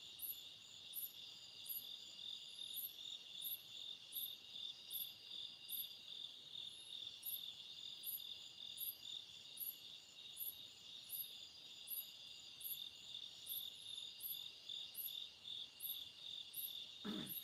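Night insect chorus: crickets trilling steadily and high, with a sharper, higher chirp pulsing about twice a second.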